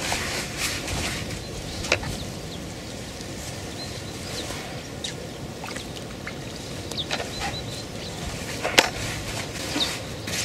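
Hands stirring dry fishing groundbait in a plastic bucket, a crumbly rustling, with more groundbait tipped in from a pack partway through. Two sharp knocks, near the start and near the end, and a few faint bird chirps sit over steady outdoor background noise.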